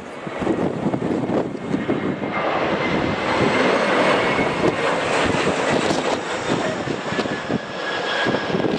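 Airliner engines passing close, the rushing engine noise swelling about two seconds in and staying loud, with a faint high whine that drops slightly in pitch toward the end.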